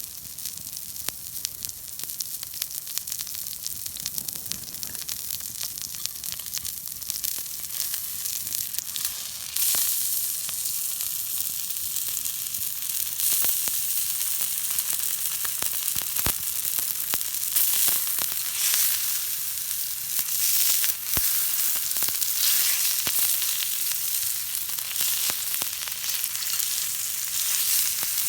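Food sizzling and spitting in hot fat, a steady hiss with many sharp pops and crackles, getting louder about ten seconds in.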